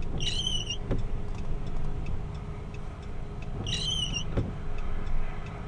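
Steady low rumble of the storm chasers' vehicle, engine and road noise in the cab. Twice, about three and a half seconds apart, a short high warbling tone cuts through it.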